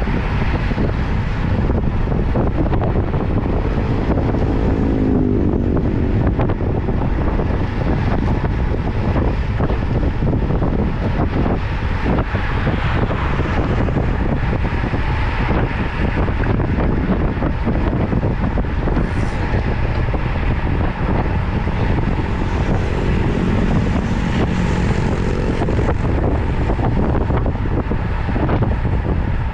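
Steady wind rushing over the microphone of a camera riding along on a road bicycle at speed.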